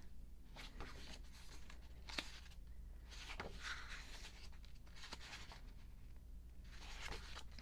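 Soft rustles and swishes of glossy paper as the pages of a K-pop album photobook are handled and turned, several times over, under a faint steady room hum.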